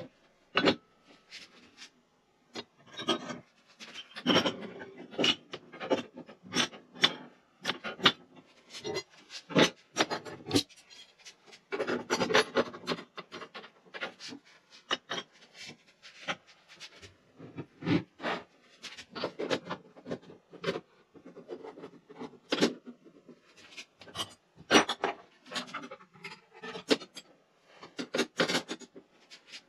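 Brass bar stock being slid back into a wooden storage rack: irregular scraping of metal on wood and on other bars, with frequent knocks and clinks.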